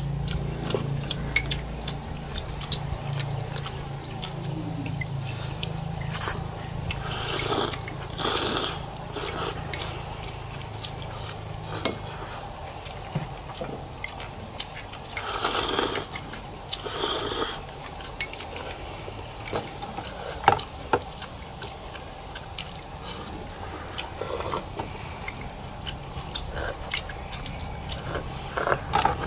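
People eating beef pho fast: noodles and broth slurped in several loud bursts, with chopsticks and spoons clicking against the bowls, over a low steady hum.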